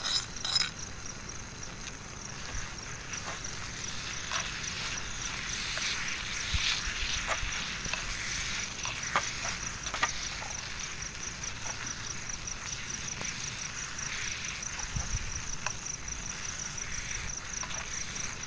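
Steel spoon stirring and scraping thick carrot halwa in a clay pot, with scattered clicks, over the steady, fast-pulsing chirp of crickets.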